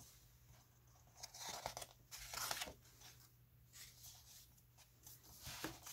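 Paper pages of a picture book being turned and handled, rustling faintly in a few short bursts, the loudest about two seconds in.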